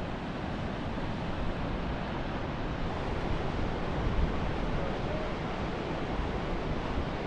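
Wind blowing across the microphone: a steady rushing noise with uneven low buffeting.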